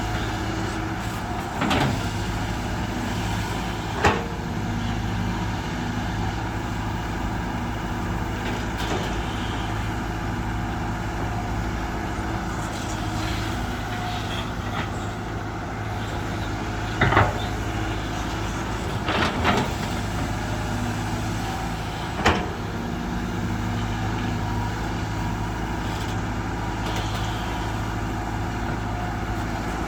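Heavy diesel engine running steadily at a constant speed, with five short sharp knocks or clanks standing out over it, the loudest near 4 s and 17 s.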